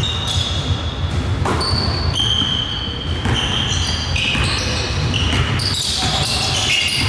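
Basketball game in play: the ball bouncing on the court and sneakers giving many short high squeaks, over a steady low rumble of the hall.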